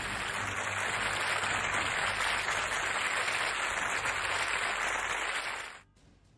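Audience applauding, a steady wash of clapping that fades out quickly about six seconds in.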